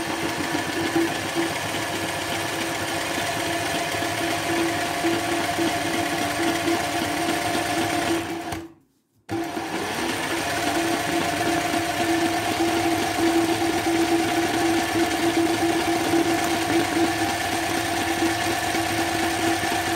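Sewing machine running steadily at speed, stitching embroidery. Its hum cuts out for under a second just before the middle, then starts again.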